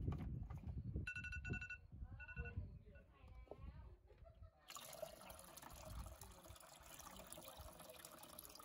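A few handling knocks, then a phone timer alarm beeps in two short runs, about one and two seconds in. From about five seconds in, water pours steadily from the spout of a Lab-Box 120 film developing tank into an enamel pot.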